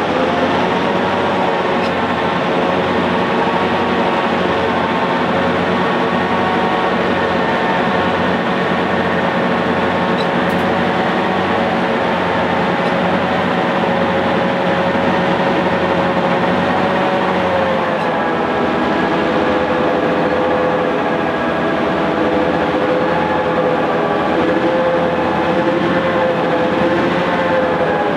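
Vintage EMD-engined diesel-electric locomotives, Victorian Railways S303 leading, working hard as they drag a loaded grain train up a steep grade at a crawl, close to stalling. A loud, steady multi-toned engine drone with a slow regular pulse underneath, dipping slightly in pitch about two-thirds of the way through.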